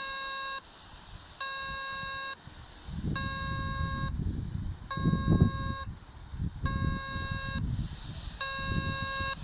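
Homemade 27 MHz AM fox-hunt beacon received on a handheld scanner and heard through its speaker: a buzzy tone beeping on and off, each beep just under a second long, repeating about every second and three quarters. A low rumbling noise on the microphone joins in from about three seconds in.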